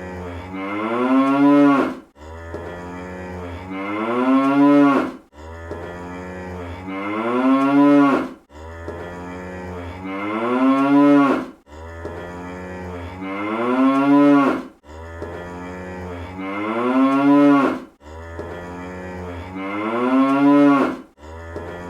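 Cartoon cow moo sound effect, looped: the same moo repeats about every three seconds, each one rising in pitch and then cutting off sharply.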